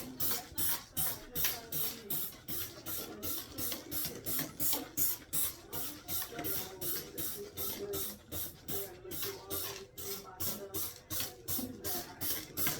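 A bathtub being scrubbed in quick, even back-and-forth strokes, about three to four a second, each a short rasping hiss.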